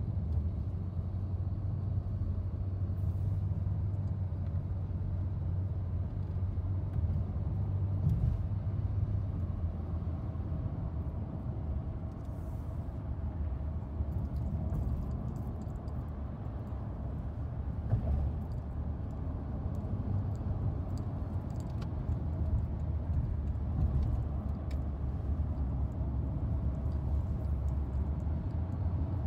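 Steady low rumble of a car driving, heard from inside the cabin: engine and tyre road noise, with a few light clicks.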